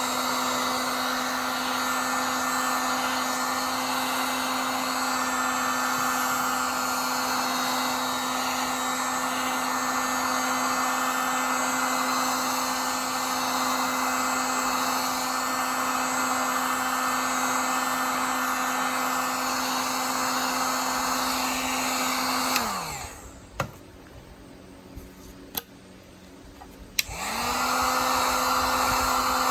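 Handheld electric hot-air blower (heat gun) running steadily with a constant hum and rushing air, of the kind used to soften Kydex for forming. About 23 seconds in it is switched off and winds down, a few sharp clicks follow, and about four seconds later it is switched back on and spins up again.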